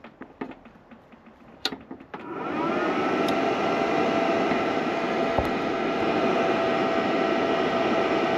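A MIG welder is switched on about two seconds in: its cooling fan spins up with a brief rise in pitch, then runs with a steady hum. A few clicks come before it starts.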